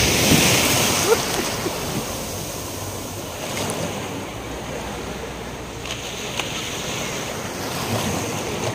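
Small sea waves washing in over shallow water at the shoreline. One surges in loudest in the first second or so and eases off, and another swells near the end.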